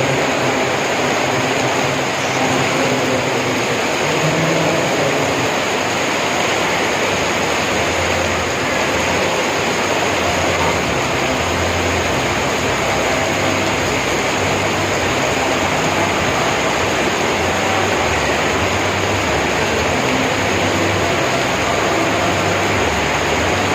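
Heavy rain pouring down, a steady, even hiss that doesn't let up.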